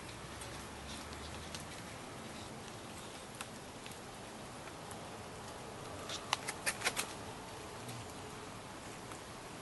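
Scattered water drips pattering on wet paving and leaves over a faint steady hiss, with a quick run of about five sharp clicks about six seconds in.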